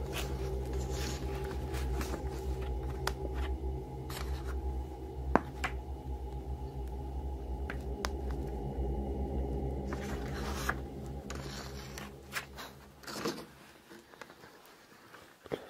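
Paper photographs being handled, with scattered rustles and light clicks, over a steady low drone that stops abruptly about thirteen seconds in.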